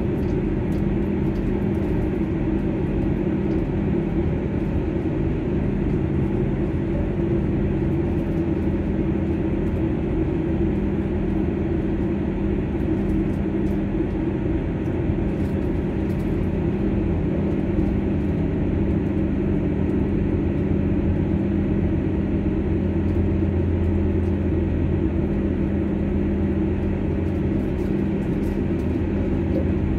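Inside a diesel multiple unit passenger train running at speed: a steady engine drone with a low hum, and the rumble of wheels on the rails.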